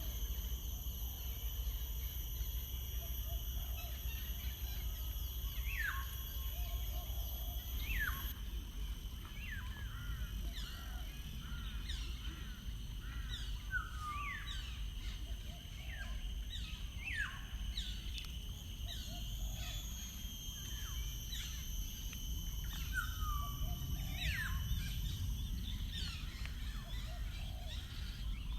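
Wild birds calling outdoors: short notes that slide quickly down in pitch, repeated every second or two. Steady high-pitched tones and a low rumble run underneath.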